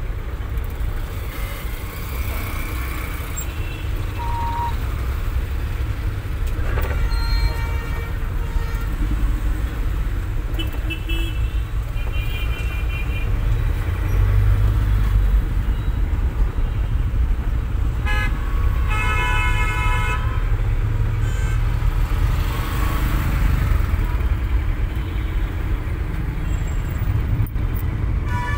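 Inside a car crawling through city traffic: steady low engine and road rumble, with car horns honking several times, one held for about two seconds just past the middle.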